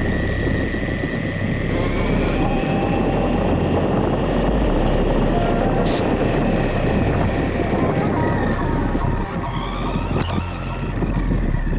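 The motor of an HBX Destroyer electric RC car, heard from a camera on the car, whining at a pitch that rises about two seconds in and shifts again near the end as the car speeds up and slows. Under it runs a steady rumble of the tyres rolling over paving and gravel.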